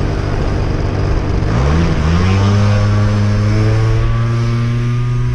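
An RC aircraft's electric motor and propeller with a rushing wind-like noise. The hum rises in pitch about a second and a half in, then holds steady.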